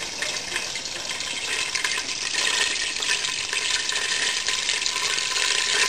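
Butter melting and sizzling in a large pot over a gas burner: a steady crackling hiss that grows a little louder as it goes.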